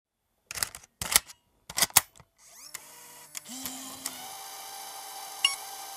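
Handheld camcorder being handled and switched on: three bursts of clicks and clatter in the first two seconds, then its mechanism whirs up into a steady running hum. A short beep comes about five and a half seconds in.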